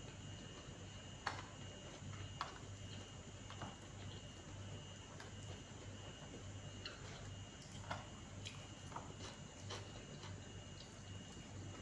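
Faint, scattered clicks and smacks of a person eating with their hands and chewing, irregularly spaced, over a steady low hum.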